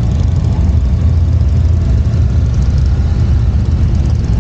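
Touring motorcycle engine running steadily under way, a deep low rumble mixed with wind and road noise.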